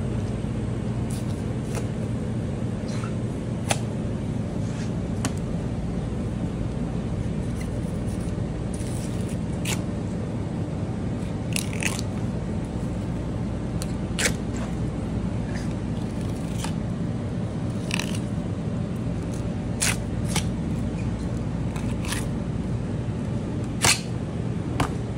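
Knife clicks and scrapes against a cutting board and the bones of a blackfin tuna as it is filleted: scattered short, sharp ticks over a steady low hum.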